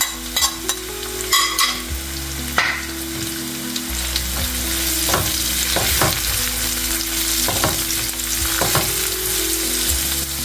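Sliced onion frying in hot oil with dried red chillies, garlic and green chillies, sizzling steadily, while a spatula stirs and scrapes the pan. Several sharp taps of the spatula come in the first two seconds.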